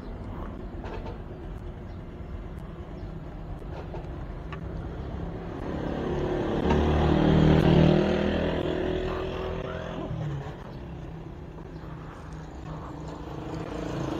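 Honda motor scooter's engine running as it rides along a street, with wind and road noise. About six seconds in the engine noise swells, loudest around eight seconds, then eases off again.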